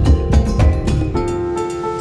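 Background music: a steady percussive beat over held notes, with the beat dropping out about a second in and leaving sustained tones.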